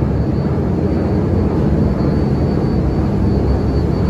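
Steady low drone of a large car ferry's engines running, with a faint thin high whine above it.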